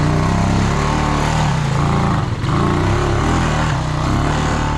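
Honda Rancher 350 ATV's single-cylinder four-stroke engine running hard under load, pulling heavy Silverback mud tires through mud and water. Its note dips briefly about halfway through.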